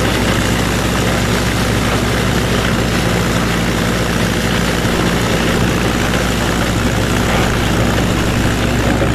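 Minneapolis-Moline U302 Super tractor engine running steadily under load in third gear, high range, mixed with the whir of a PTO-driven flail chopper shredding corn stalks.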